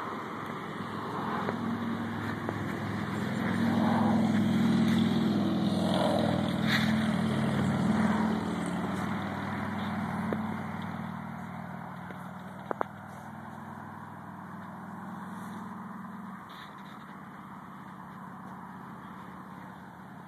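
An engine running steadily at an even pitch. It grows louder over the first few seconds, then fades back down after about twelve seconds. A sharp double click comes about two-thirds of the way through.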